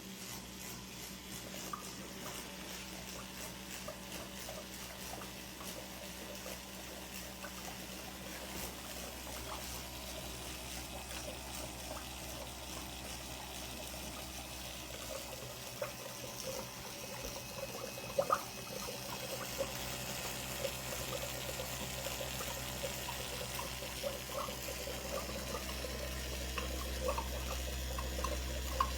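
Water trickling and splashing over a low steady hum, with small scattered bubbling ticks and a couple of louder clicks about two-thirds of the way through.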